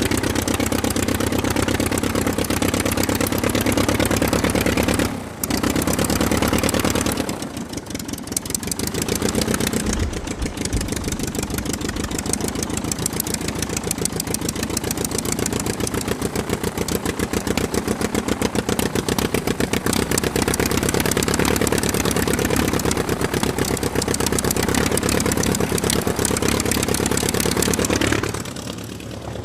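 Aircraft engine running steadily, its level dipping briefly about five seconds in, again around seven to eight seconds, and near the end.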